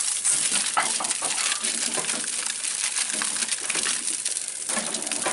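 Aluminium foil crinkling and rustling as a foil-wrapped brisket is handled and slid onto a smoker's wire rack, with many small clicks and clinks.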